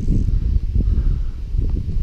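Wind buffeting the microphone: a loud, uneven low rumble, with a few light knocks mixed in.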